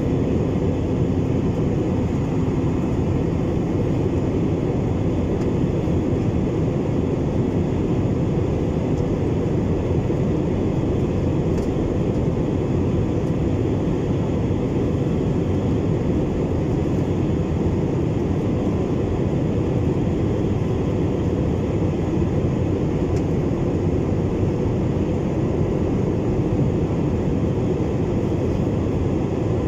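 Steady cabin noise of a jet airliner in flight, heard inside the cabin by the window over the wing: the turbofan engines and the rushing airflow make an even, unbroken noise that is heaviest in the low range.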